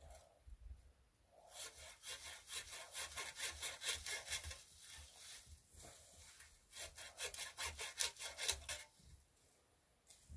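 Hand saw cutting through branch wood in quick back-and-forth strokes, in two bouts separated by a pause of about two seconds.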